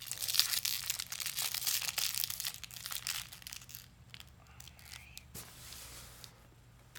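Crinkling and tearing of the wrapper layers of an L.O.L. Surprise Confetti Pop ball as it is unwrapped by hand, loud and crackly for the first few seconds, then softer rustling.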